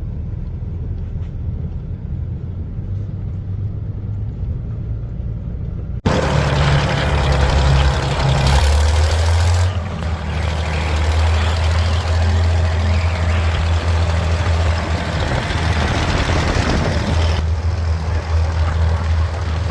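Vehicle engine running steadily with a low hum. About six seconds in, the sound abruptly jumps louder and a strong hiss is added across the whole range over the engine.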